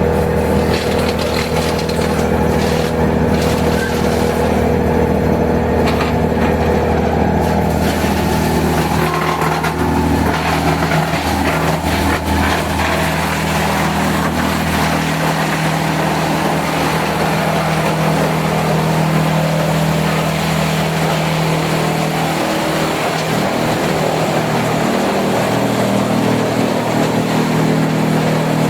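Industrial wood chipper rated at 12–15 tons per hour, running with a steady hum. From about eight seconds in, a rougher, hissing noise grows over the hum, and the hum's pitch shifts between about ten and fifteen seconds in.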